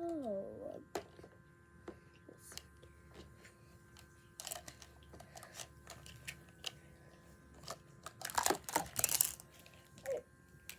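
Chunky slime being squeezed and stretched by hand, making irregular wet clicks, pops and crackles, with a louder burst of crackling near the end.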